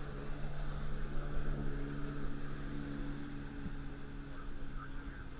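Motor of an open dive boat running steadily under way, with a low, even engine hum over water and wind noise.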